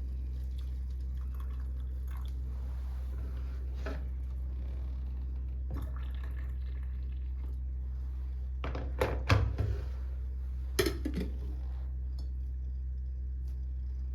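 Dishes clinking a few times, about nine and eleven seconds in, over a steady low hum.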